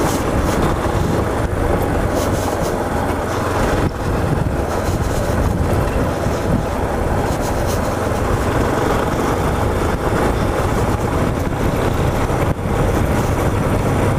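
Motorcycle riding along a rough gravel dirt road: engine running steadily under a dense rush of wind on the microphone and tyre noise, with two brief dips about four and twelve and a half seconds in.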